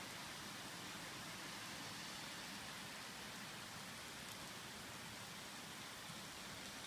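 Steady rain falling: an even hiss with no single drops or other sounds standing out.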